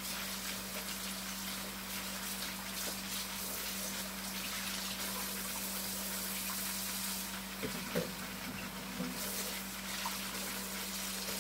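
Hot water being poured into a pot of pork chops in a steady stream.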